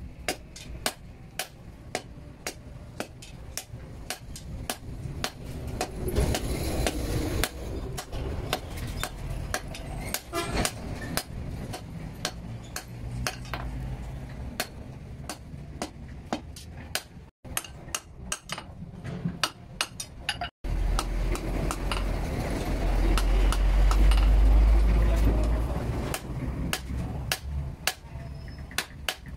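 Hand hammer striking red-hot blade steel on a small steel anvil, steady ringing blows about two a second. About two-thirds of the way through, a low rumble swells for a few seconds under the blows and fades.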